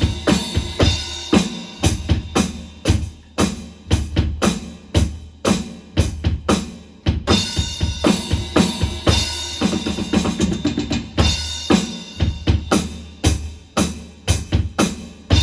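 Drum kit playing a groove: a dense, unbroken run of bass drum and snare strokes with ringing cymbals.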